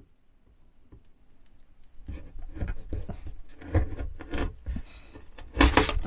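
Kitchen knife sawing through a rock-hard, dried piece of biltong on a paper plate, with irregular scraping and knocks from the plate and table under heavy pressure. It is faint for the first two seconds, then rougher and louder, with the loudest scrape just before the end as the slice comes free.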